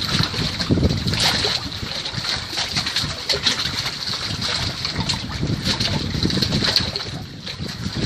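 Wind gusting across the microphone, with small waves lapping against the wooden dock and its pilings.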